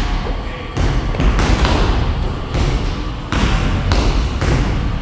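Irregular heavy thuds and knocks of dumbbells and jumping feet landing on rubber gym flooring during a dumbbell-and-box-jump workout, roughly one impact a second.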